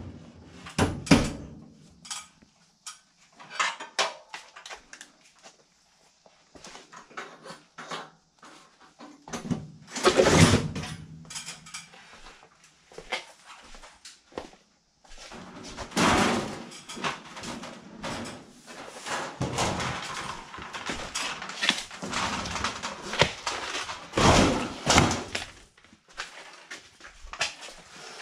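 Irregular knocks, clatter and scraping of galvanized sheet-metal duct panels and tools being handled and set down, with longer stretches of scraping and rustling in the middle.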